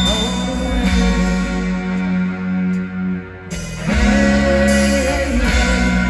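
Rock band playing live through the stage PA speakers: guitars, bass and drums. The sound thins out and drops briefly about halfway through, then the full band comes back in.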